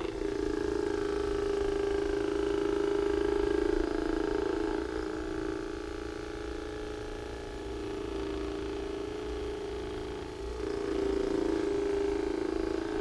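Handheld electric massager buzzing steadily as it is worked over the patient's muscles. It dips in loudness for several seconds in the middle, then comes back up.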